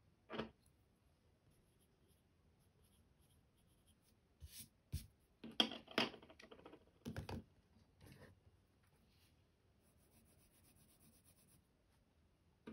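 Wooden colored pencils being handled and knocked against each other, several sharp clicks in the middle. Later, the quick, faint scratching of a colored pencil lead stroking back and forth on paper to lay down a color swatch.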